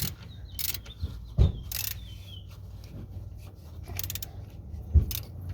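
Metal tool-handling noises: light clinks and clicks with two dull thumps, one about a second and a half in and one near the end, as the stud puller and the freed stud are handled and set down. A steady low hum runs underneath.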